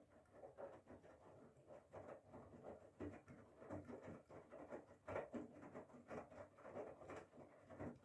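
Whirlpool FSCR90425 front-loading washing machine's drum turning during the wash phase of a Cotton 40°C cycle: wet laundry and water sloshing and dropping inside with an irregular patter. It stops suddenly at the end as the drum halts.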